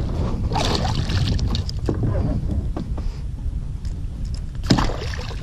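Water splashing and sloshing at the side of an inflatable boat as a hooked pike is brought in, with scattered knocks and handling clicks over a constant low rumble. There is one sharp knock near the end.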